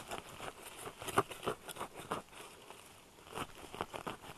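Irregular crunching and scraping of forest soil and dry leaves as a hole is dug by hand toward a pinpointed metal-detector target.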